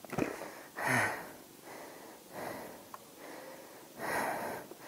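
A person breathing heavily close to the microphone, several noisy breaths a second or two apart.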